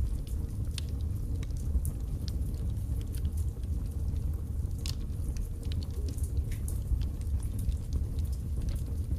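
Birch logs burning in a fireplace, crackling and popping often over a steady low rumble, with one louder pop about five seconds in.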